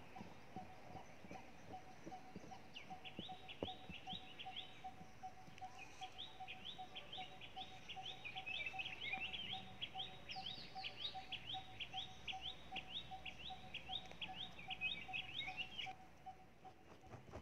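A bird calling in long, fast series of short, sharp chirps, about five a second, starting about three seconds in, pausing briefly, then running on until near the end. A faint, steady pulsing tone sits underneath.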